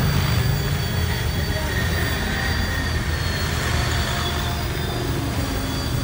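Fly Wing FW450 electric RC helicopter flying overhead: a steady high motor whine that wavers slightly in pitch, over the rush of its rotor.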